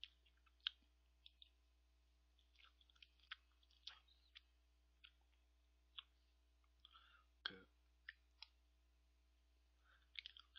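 Faint, scattered small clicks and mouth noises of someone eating ice cream with a metal spoon, with one louder knock about seven and a half seconds in.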